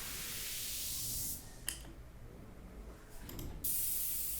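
White-noise sweep sample played back from music production software: a high hiss swells up and cuts off suddenly about a second and a half in, then after a few short clicks a second hiss starts abruptly near the end and slowly fades.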